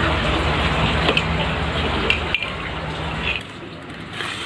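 Light metallic clinks and knocks from a telescopic aluminium trolley handle being handled, over a steady background noise with a low hum that drops away about three and a half seconds in.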